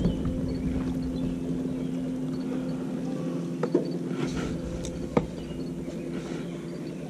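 Bow-mounted electric trolling motor humming steadily with a low rumble under it. The rumble drops away about two seconds in and the hum eases off about halfway through. Two sharp knocks come a second and a half apart near the middle.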